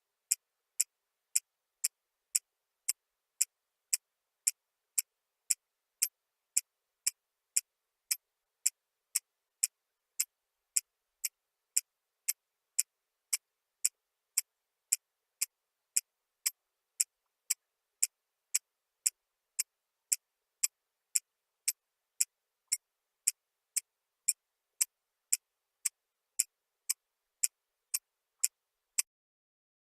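Even, regular ticking: light, sharp ticks about two a second with silence between them. The ticking stops about a second before the end.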